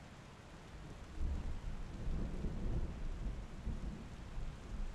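A low, uneven rumble that comes up about a second in, with a faint hiss beneath it.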